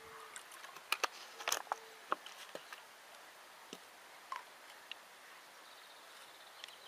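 The last of water pouring from a plastic bottle into the yellow plastic water landmine stops right at the start, followed by a scatter of small plastic clicks and knocks as things are handled around it. A few lighter clicks about four to five seconds in come as the CO2 cartridge is set onto the mine's central post.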